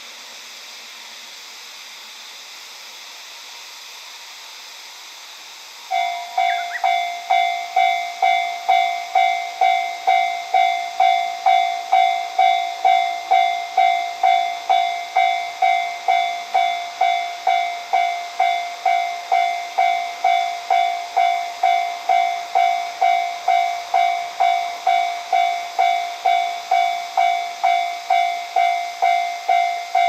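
Japanese level-crossing warning bell starting about six seconds in and ringing in steady repeated strikes, about two a second, as the crossing's lights flash and the barriers lower. Before it, only a faint steady hiss.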